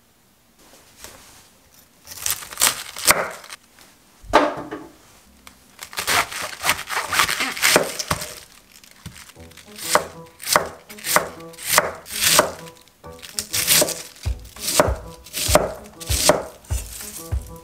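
Cabbage being cut and shredded with a large kitchen knife on a wooden end-grain cutting board: crisp crunching cuts through the leaves, each ending in a knock of the blade on the board. The cuts start about half a second in and settle into an even rhythm of about two strokes a second.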